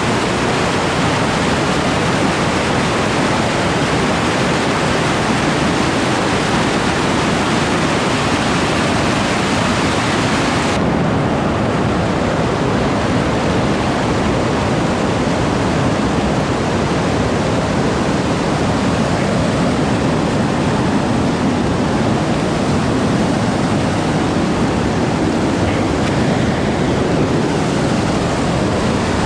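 Nabuyole Falls, a large waterfall on the Nzoia River, pouring steadily: a loud, even rush of falling water. About eleven seconds in, the highest part of the hiss drops away abruptly.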